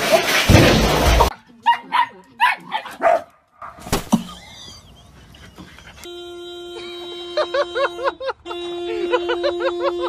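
A loud rustling burst and a few short cries, then from about six seconds a car horn sounding in one steady tone, cut off briefly a couple of seconds later, as a dog standing on the steering wheel presses the Renault's horn pad with its paws and barks rapidly over it.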